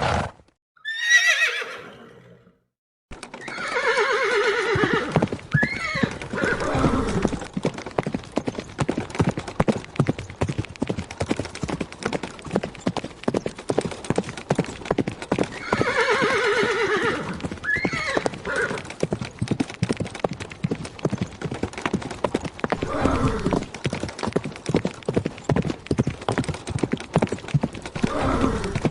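A horse whinnies once, then after a brief pause its hooves start pounding in a fast, continuous gallop, with further neighs and whinnies breaking in several times over the hoofbeats.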